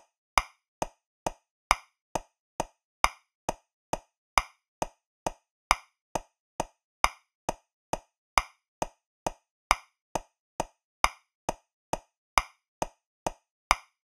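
Metronome clicking steadily at 135 beats per minute in 3/4 time, a little over two clicks a second, with every third click, the first beat of each bar, accented louder.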